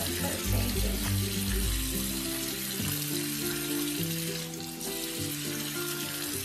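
Bathroom sink faucet running steadily into the basin as a puppy is washed under it, a continuous splashing hiss. Background music with a low, stepping bass line plays underneath.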